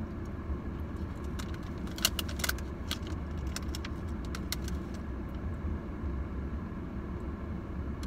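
A paper food bag crinkling in a few short bursts, clustered about two seconds in, as pieces of a dessert bar are pulled from it, over the steady low hum of a car.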